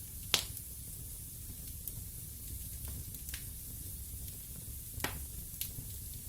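Wood fire burning in a fireplace: a steady low rumble and hiss with a few sharp crackles and pops. The loudest pop comes about a third of a second in, and others come a little past the middle and about five seconds in.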